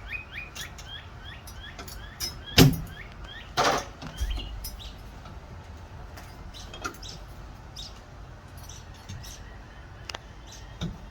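Small birds chirping in quick repeated notes, with two sharp knocks about two and a half and three and a half seconds in and scattered light clicks.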